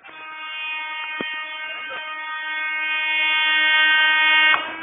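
A train's horn sounding in one long steady blast that grows louder as the train comes closer, then cuts off about four and a half seconds in.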